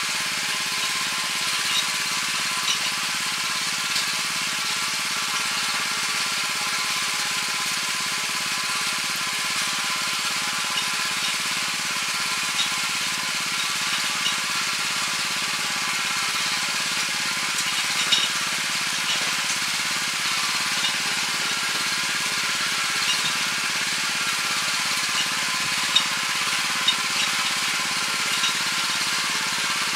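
Weima WM 900 walk-behind tiller's 7 hp engine running steadily under load while its rotary tines work hard, compacted soil, with a few faint sharp ticks now and then.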